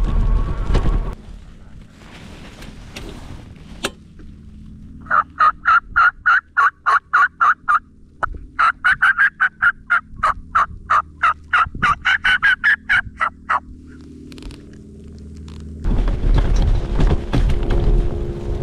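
Turkey calling: two runs of rapid, evenly spaced sharp notes, about four or five a second, the first about three seconds long and the second about five. A loud rush of riding noise stops about a second in and comes back near the end.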